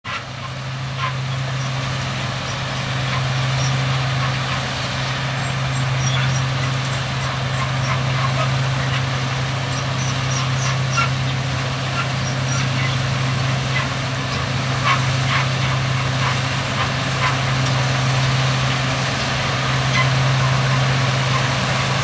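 Steady diesel engine hum from a John Deere 6145R tractor pulling a Top Air twin-row onion harvester, with a truck engine running alongside. Over it, a constant clatter from the harvester as it lifts and elevates onions, with scattered sharp clicks.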